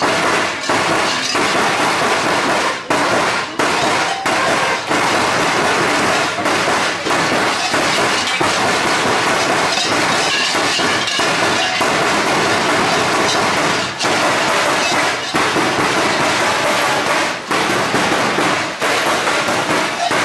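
Many large Perchten cowbells clanging at once, a loud, dense and continuous metallic jangle with irregular strokes.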